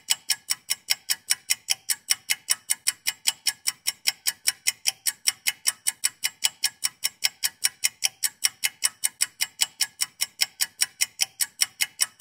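Ticking-clock sound effect: an even run of sharp ticks, about five a second, that starts and stops abruptly.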